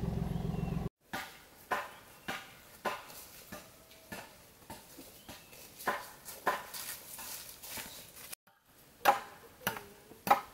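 A farm truck's engine runs briefly and then cuts off. It is followed by a steady run of sharp wooden knocks, about one every half second or a little more, growing louder near the end.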